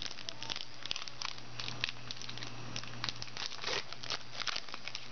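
Foil wrapper of a trading-card pack crinkling in the hands, a quick, irregular run of small sharp crackles as the pack is handled and torn open.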